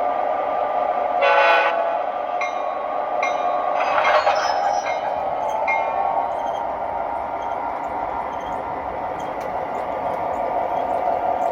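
MTH Premier O-gauge model diesel locomotive's sound system playing a short horn blast about a second in, then a bell ringing a few times over a steady diesel engine hum. Faint clicks follow near the end.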